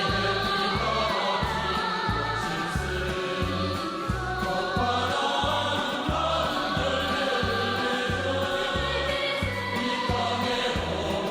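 North Korean pop song: a choir singing over a steady bass beat.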